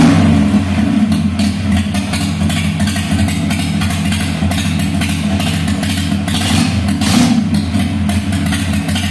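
Harley-Davidson Sportster's air-cooled V-twin running through an aftermarket stainless full exhaust system, settling from a rev into a steady idle, with one short throttle blip about seven seconds in.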